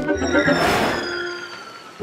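Cartoon background music with a whoosh sound effect that swells and fades about half a second in, for a ball flying through the air.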